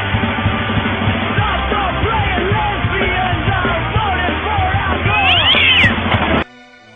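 Cats meowing over and over in short calls that rise and fall, with a louder, higher cry about five and a half seconds in. The sound cuts off suddenly near the end.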